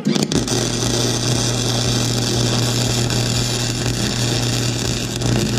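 Flux-core wire-feed welder striking an arc right at the start and then crackling and sizzling steadily over a low electrical hum, laying a weld bead over a crack in an exhaust manifold.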